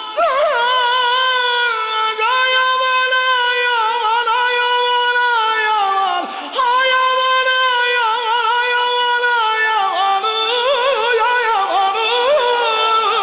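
A solo male voice singing a mourning lament (noha) in long, high held notes broken by rapid warbling ornaments, with a short breath about six seconds in.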